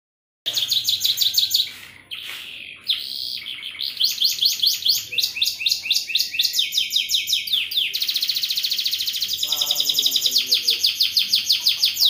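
Domestic canary singing a long, vigorous song of fast trills and rolls: rapidly repeated high notes, with a quick continuous roll in the second half. The song starts about half a second in.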